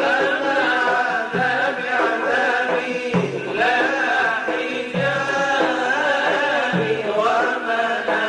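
Background music: an Arabic devotional chant, a voice carrying a melody, with a low pulse recurring about every two seconds.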